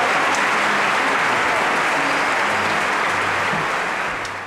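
Theatre audience applauding a singer's bow at an opera performance: steady clapping that fades away near the end.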